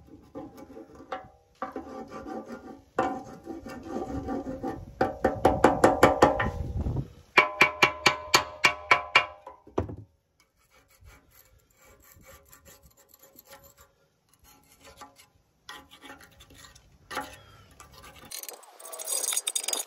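Hammer rapidly tapping a paint scraper against a steel plow frame to chip off bad powder coat and rust, each blow ringing off the metal. About ten seconds in the hammering stops and gives way to quieter scraping by hand. A hiss comes in near the end.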